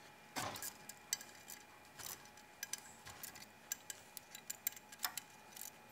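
Faint, irregular metallic clicks and clinks of a ratchet and socket working the 12 mm bolts of a swivel hub's rear seal on a front axle, with a few slightly louder clicks.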